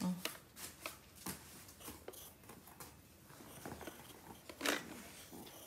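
Pencil writing on notebook paper: soft, irregular scratches and taps, with one louder stroke near the end.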